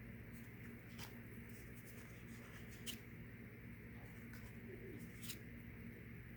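Faint room tone with a steady low hum, broken by three short, sharp clicks.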